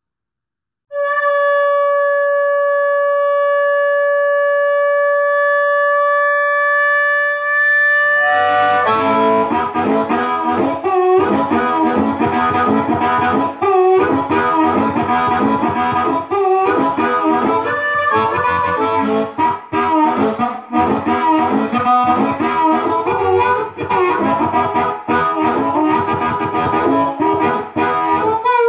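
Amplified blues harmonica, a Hohner Blues Harp in A played through a Calrad DM-32C harp microphone into a Monoprice SB-12 tube amp. After a moment of silence it holds one note for about seven seconds, then breaks into quick runs of shifting notes.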